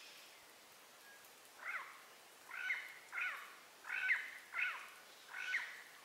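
An animal calling: six short pitched calls, each under half a second, spaced roughly half a second to a second apart, beginning a little under two seconds in.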